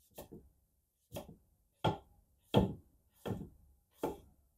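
Daggerr Resident folding knife slicing a green apple on an end-grain wooden cutting board, the blade knocking on the board at the end of each cut. There are six cuts at an even pace, a little under a second apart.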